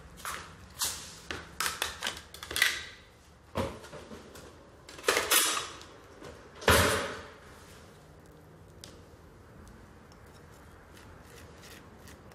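Kitchen handling noises: a run of small clicks and knocks as objects are moved and set down on a counter, with two louder knocks about five and seven seconds in, then quiet room tone.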